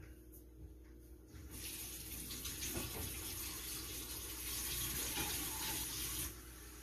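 Water running from a tap into a sink, a steady rushing that starts about a second and a half in and is shut off abruptly near the end.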